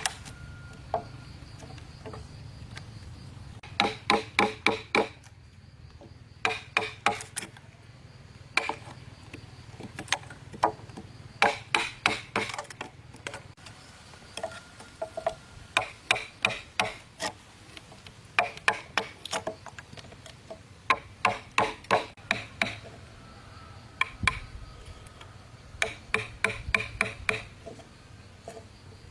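Hammer driving nails into wood: bursts of four to six quick, ringing strikes, with short pauses between bursts.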